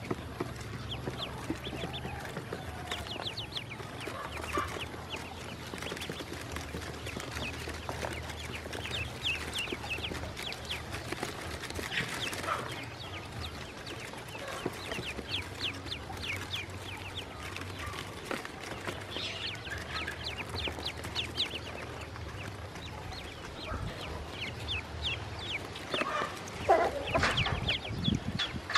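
Newly hatched ducklings peeping continuously, many short high chirps overlapping. Near the end a louder, lower call stands out over the peeping.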